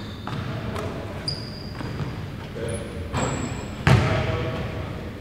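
Basketball bouncing on a hardwood gym court, with short high squeaks of sneakers on the floor; the sharpest bang comes about four seconds in.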